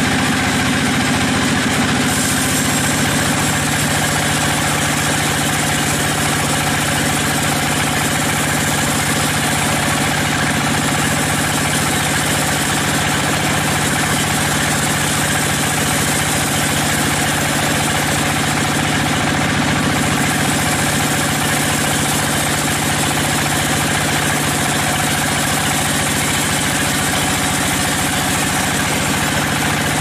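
Sawmill machinery running steadily: a constant motor hum with an even mechanical noise over it, without breaks or changes in load.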